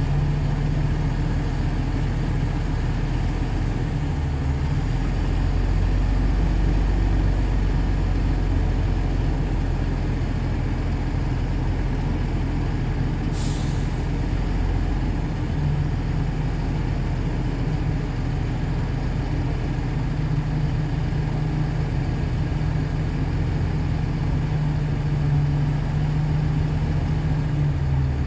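Shantui DH17C2 bulldozer's diesel engine running steadily under working load, its note shifting a little as it works. A brief high hiss sounds about halfway through.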